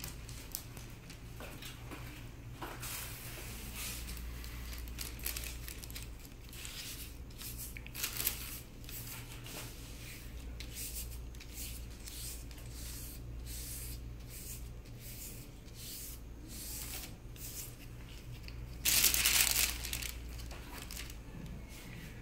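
Soft-wax strip work on a leg: crinkling and rubbing as a paper wax strip is pressed and smoothed onto the waxed skin, then near the end a loud rip about a second long as the strip is pulled off.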